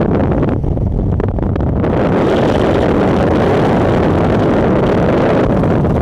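Loud, steady rush of freefall wind buffeting the camera's microphone. The upper hiss thins for a moment about half a second to two seconds in.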